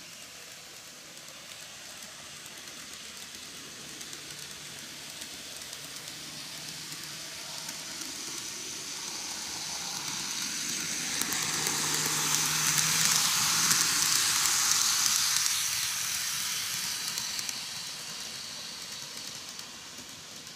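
N-gauge model train, a Greenmax Meitetsu EL120 electric locomotive set, running past on the track: the whir of its motor and the hiss of its wheels on the rails grow louder as it approaches, are loudest about thirteen seconds in, then fade away.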